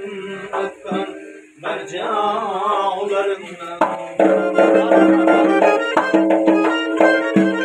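Live Uzbek folk music: a man sings a wavering line over doira frame-drum strokes and accordion. About four seconds in, the accordion and drum come in louder, with sustained chords over a steady beat.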